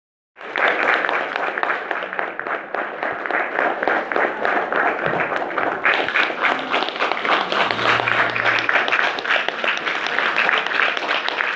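Audience applauding, a dense, steady clapping that starts just after the beginning and keeps on.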